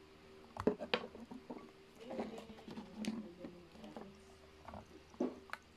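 Light knocks and clicks of a plastic food tray being handled, with a few sharp taps about half a second and a second in and twice more near the end.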